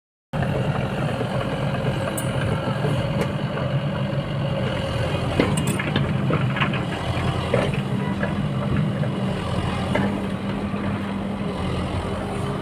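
SANY SY80 excavator's diesel engine running steadily, with a few short knocks and clanks scattered through.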